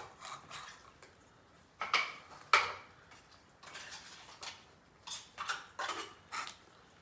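Clinks and knocks of a utensil against dishes as cat food is served out, with two louder knocks about two seconds in and a quick run of lighter clinks near the end.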